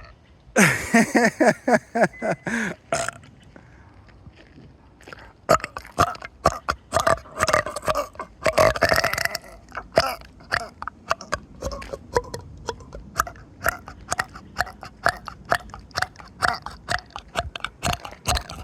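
A person burping: one long, drawn-out burp with a wavering pitch about half a second in, lasting about two seconds, then from about five seconds in a long run of rapid short croaks and clicks from the throat.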